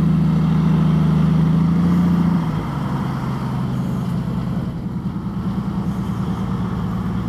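Honda Valkyrie's flat-six engine running steadily, heard from the rider's seat. About two and a half seconds in it becomes quieter and carries on at that level.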